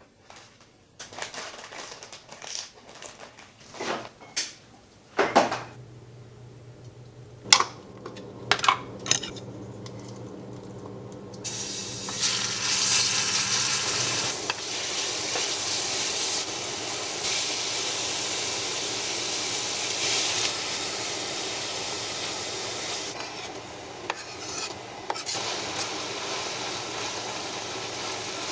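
Utensils clinking and knocking against dishes and a pan, then food sizzling in a hot pan, starting suddenly about eleven seconds in and running on loudly, over a steady low hum.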